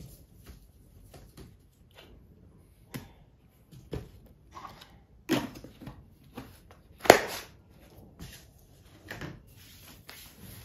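A plastic protein-powder tub and its white plastic seal handled and rummaged through: scattered knocks and rustles, the loudest a sharp knock about seven seconds in.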